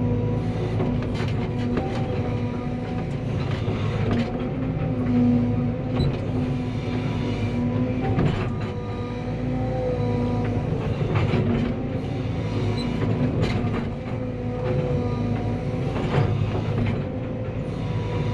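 Cat 320 excavator's diesel engine running with a steady hum that wavers slightly in pitch, over scattered metallic clanks and knocks.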